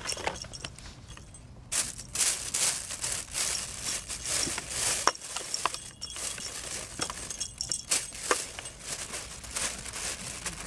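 Crinkling and scratching as cats paw at a feather wand toy inside a cardboard box and against a plastic bag, irregular throughout, with a few sharp light clicks about halfway.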